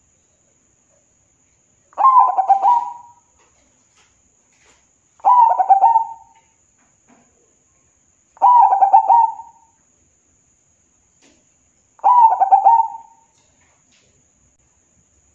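Zebra dove (perkutut) singing its rapid, stuttering coo four times, each phrase about a second long and some three to four seconds apart.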